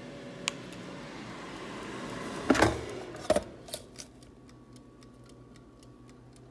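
Air fryer running with a steady fan hum. About two and a half seconds in, the basket is pulled out with a few loud clunks and the hum stops, leaving the mechanical timer dial ticking about three times a second.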